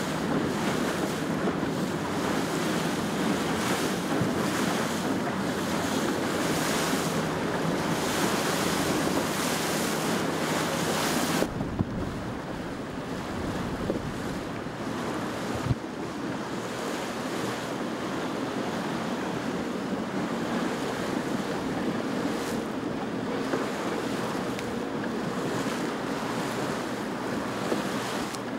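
Wind buffeting the microphone over the wash of waves: a steady rushing noise that changes abruptly about eleven seconds in and loses some of its hiss.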